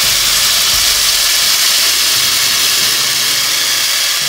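Blended red chile and corn-flour sauce poured from a blender jar into a pot of onions frying in hot oil, hissing and sizzling steadily as the liquid hits the oil.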